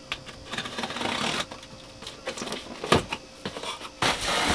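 Cardboard box being opened: a utility knife slitting packing tape and scraping on cardboard, with a sharp knock about three seconds in, then cardboard rustling and sliding as the inner box is pulled out near the end.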